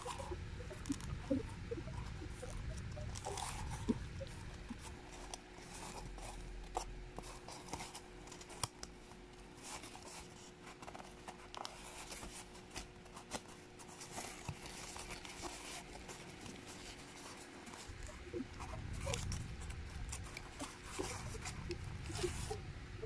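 Corrugated cardboard being handled: fingers pressing, bending and rubbing the slit cardboard strips, giving soft scratchy rustles and scattered small clicks.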